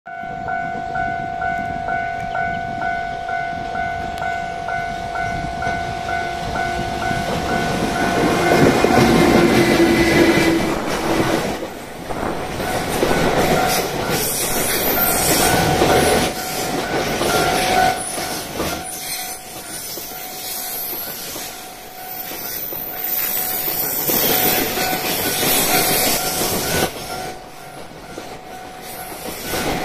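Level-crossing bell ringing in a steady pulsing pattern throughout. From about eight seconds in, a freight train passes close by: container wagons rumble and clatter over the rail joints, and the noise swells and fades as the wagons roll past.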